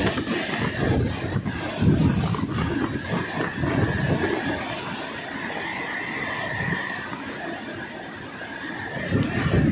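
Typhoon wind gusting through trees and buffeting the microphone, a rushing roar with a thin high whistle running through it. The gusts ease off in the middle and build up again near the end.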